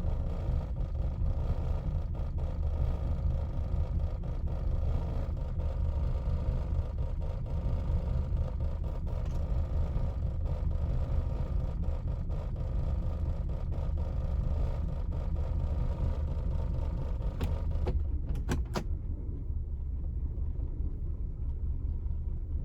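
1999 Lexus RX 300's 3.0-litre V6 idling in drive with a steady low rumble. It is struggling from a misfire in cylinder 6, which the owner blames on a bad ignition coil. A few short clicks come near the end.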